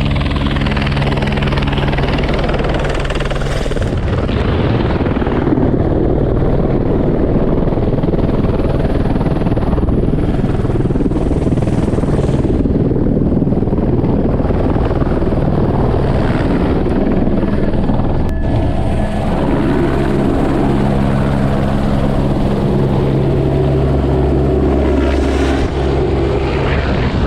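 Helicopter in flight, its engine and rotor running steadily and loudly, with a low drone of steady tones clearest near the start and again from about twenty seconds in.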